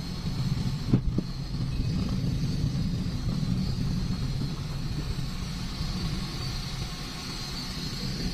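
Steady low rumble of a car's engine and road noise heard from inside the moving car's cabin, with a single short knock about a second in.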